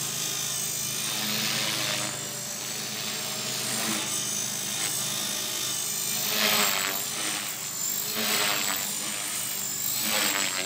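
HK-450 electric RC helicopter in flight: a steady high-pitched whine from the motor and gears over the buzz of the rotor, swelling into louder rushes of blade noise about six and a half, eight and ten seconds in as it manoeuvres.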